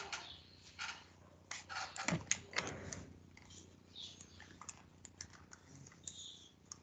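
Faint scattered clicks and taps, heard over a video-call connection, with a couple of brief high chirps about four and six seconds in.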